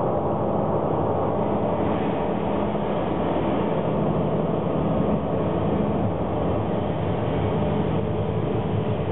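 Steady, dense drone of many held tones over a noisy hum: the soundtrack of a looping double video-projection installation. The higher part of the sound grows slightly brighter about two seconds in.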